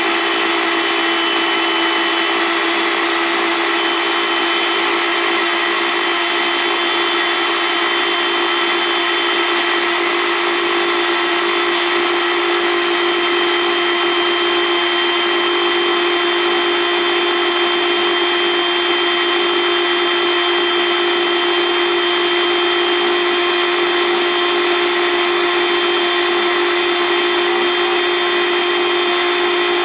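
Electric blender motor running steadily at one unchanging pitch, churning whipping cream that is thickening toward butter.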